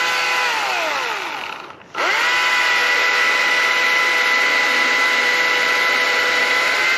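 Husqvarna 440 two-stroke chainsaw at full throttle while cutting a log. The throttle is let off about half a second in, and the engine winds down almost to a stop. About two seconds in it is opened up again and held at a steady high pitch.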